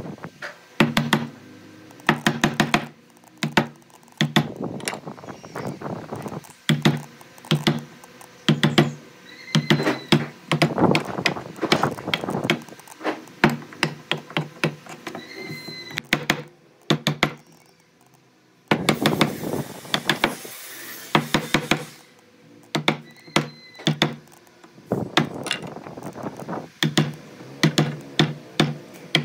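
Hand tools working wood: a long run of knocks, taps and thuds on timber, broken about two-thirds of the way through by about three seconds of steady rasping, like sawing or scraping.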